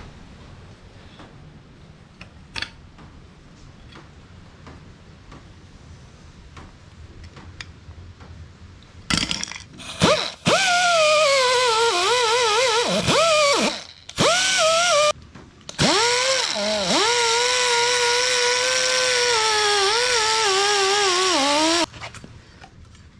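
Small hand-held rotary tool with an abrasive sanding disc whining at high speed as it sands the metal fuel pump sender cover. Its pitch dips and wavers as the disc is pressed onto the metal. It stops and spins back up a few times, then runs for about six seconds before stopping, after a quieter stretch of light handling clicks.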